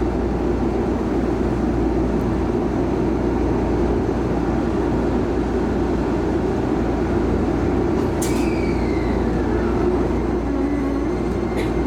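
Steady hum and rumble inside a Shizuoka Railway A3000 series electric train standing still. About eight seconds in, a short whine slides down in pitch, and a couple of sharp clicks come near the end.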